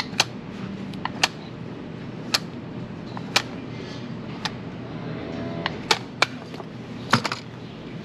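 Hoof knife cutting through a cow's hoof horn: a crisp snap with each stroke, roughly once a second, sometimes two in quick succession.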